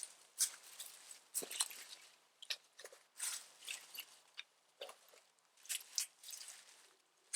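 Irregular crunching and crackling, one or two sharp crunches a second.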